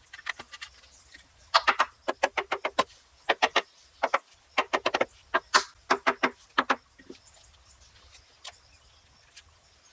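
A run of sharp hand-tool strikes on wood, a few per second and irregular, like a hammer or mallet knocking a frame into place; they stop a few seconds before the end.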